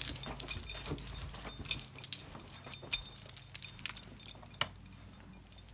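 Small metal pieces jingling, with scattered light clicks and taps.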